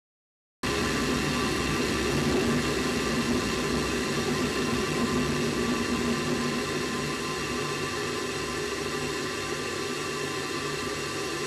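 Steady whir and hiss with several steady hums, starting abruptly about half a second in, picked up by the onboard camera of a space shuttle solid rocket booster.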